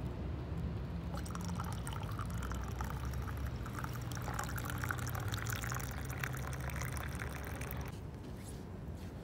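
Cocoa pouring from a flask into a stainless-steel camping mug, a splashing, bubbling stream that starts about a second in and stops near the end as the mug fills.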